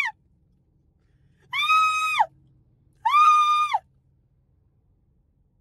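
A woman's high-pitched excited squeals, two of them, each held for under a second on one pitch and dropping at the end.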